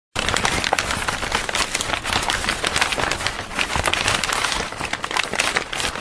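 Dense crackling sound effect, many small pops and clicks over a steady hiss, starting suddenly out of silence, accompanying a channel logo animation.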